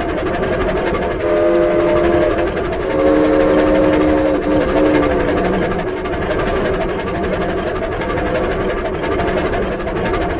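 Cartoon-style steam train sound effect, made from scratch: the locomotive running steadily with a continuous chuffing rumble, and two blasts of a multi-note whistle, a short one about a second in and a longer one just after.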